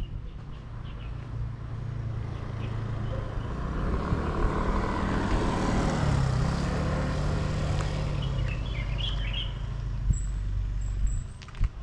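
A motor vehicle drives past, its engine hum and road noise building to a peak about halfway through and then fading away. A bird chirps briefly near the end.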